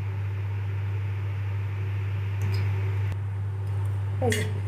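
Steady low hum with room noise, and a few light clicks in the second half, the sharpest about four seconds in.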